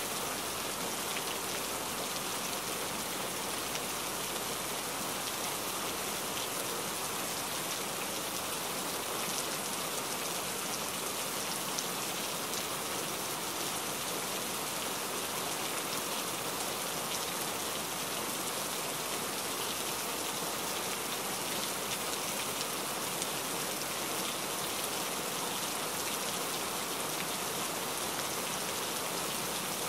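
Steady rain: an even hiss with faint ticks of single drops.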